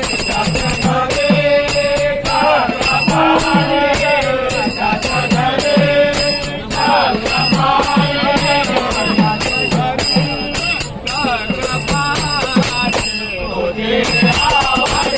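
Bhajan music: hand cymbals clashing and ringing on a steady beat, with a hand drum's bass strokes and a melodic line over them.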